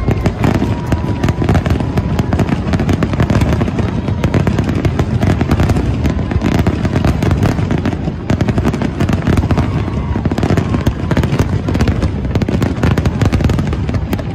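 Aerial firework shells bursting and crackling in a rapid, unbroken barrage, many reports overlapping with no gaps, the dense volley of a fireworks display's finale.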